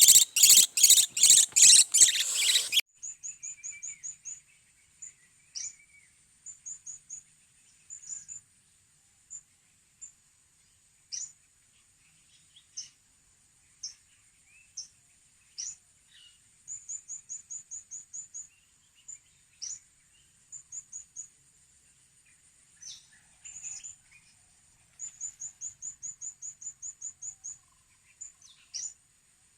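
Blue-crowned hanging parrots (serindit) calling: thin, very high chirps, some in quick runs of several notes and some single falling notes, over a faint steady high tone. A loud rapid pulsing sound fills the first few seconds.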